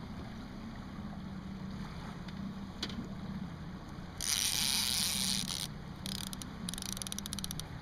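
Boat motor idling with a steady low hum. About four seconds in, a loud burst of hiss lasts a second and a half, and a quick run of ticking follows near the end.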